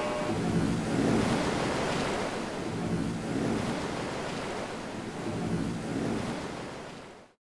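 Rushing, surging water like breaking surf, swelling and easing every second or two, then fading and cutting off just before the end.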